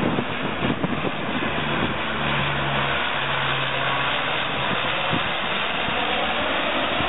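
Propeller engines of a Canadair water-bombing plane droning steadily as it flies low overhead.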